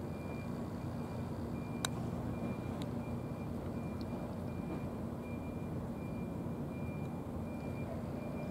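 Steady low rumble of a running vehicle engine with a humming tone, under a repeated high beeping; a single sharp click about two seconds in.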